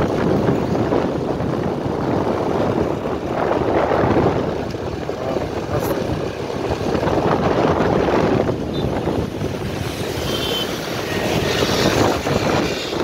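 Wind rushing and buffeting over the microphone of a moving vehicle, mixed with engine and road traffic noise. The sound is a dense, uneven rumble that swells and dips throughout.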